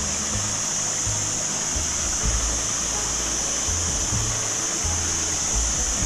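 Water running over rocks in a small mountain stream, a steady rushing, under background music with a slow, stepping bass line.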